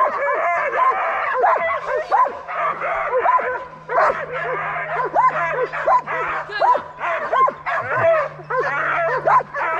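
Many dogs yelping and barking over one another in quick, high-pitched yelps: the excited yelping of canicross dogs eager to run.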